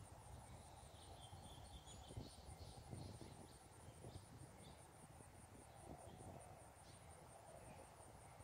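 Faint outdoor ambience: an insect's high, steady trill pulsing about five times a second, with a few faint bird chirps.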